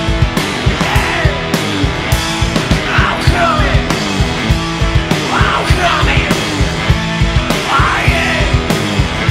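Live rock band playing an instrumental passage: a driving drumbeat with cymbals under a lap steel guitar played with a slide, its notes swooping up and down in pitch about every second or so.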